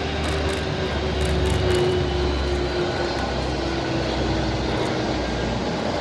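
Aircraft engines running steadily in flight, with a low hum and a tone that sinks slowly in pitch as the aircraft passes.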